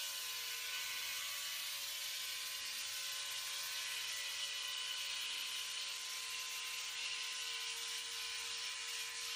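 Electric shaver running with a steady whir as it shaves a monkey's fur.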